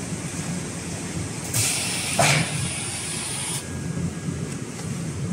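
A burst of compressed-air hiss, about two seconds long, from the pneumatic system of a radio-frequency PVC welding machine, with a clunk in the middle of it. A steady low machine hum runs underneath.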